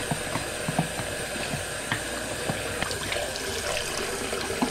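Tap water running steadily into a bathroom sink while a plastic Paterson film-developing tank is rinsed, with small knocks as the tank is handled; water pours out of the tank into the basin near the end.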